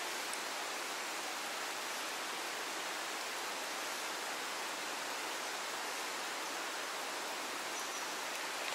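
Fast-flowing, swollen creek rushing past: a steady, even hiss of running water.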